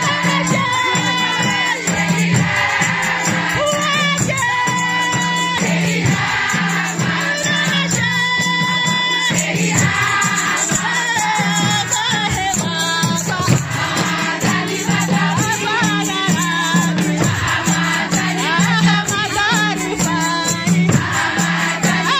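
A group of women singing together in chorus over a rattling percussion rhythm.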